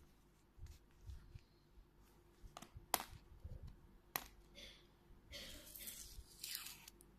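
Hands handling a plastic surprise egg: a few sharp clicks of fingers on the plastic shell, then, over the last two seconds, a scratchy tearing as the sticker label is peeled off the egg.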